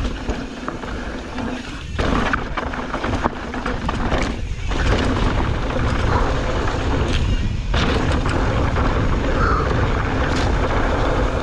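Mountain bike riding fast down a dirt trail: the tyres rumble over dirt and rocks with many small knocks and rattles from the bike, and wind rushes over the microphone.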